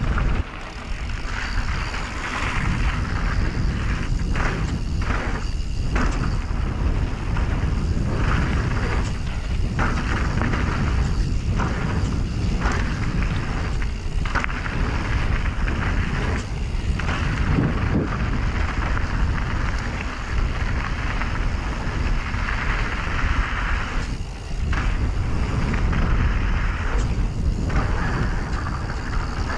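Canyon Strive mountain bike running fast down a dirt trail: steady wind rush on the microphone mixed with the rolling noise of knobby tyres and the rattle of the bike, dipping briefly now and then.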